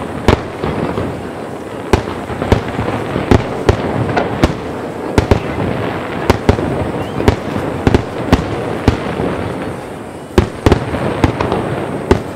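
A fireworks barrage: firework shells bursting in quick succession, sharp bangs about twice a second over a continuous rumble and crackle.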